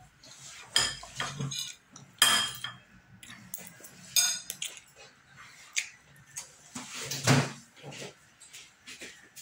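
A plastic spoon clinks against a ceramic bowl several times, each clink ringing briefly. Between the clinks come softer sounds of noodles being slurped and eaten.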